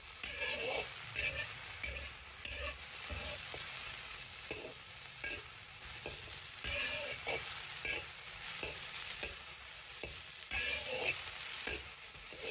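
Sliced eggplant and peppers sizzling in a hot wok over high heat while a spatula scrapes and tosses them, with a scrape about every second.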